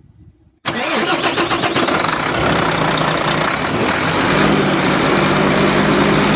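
Truck's diesel engine starting suddenly and settling into a steady idle, run to test an improvised repair on the broken air compressor pipe.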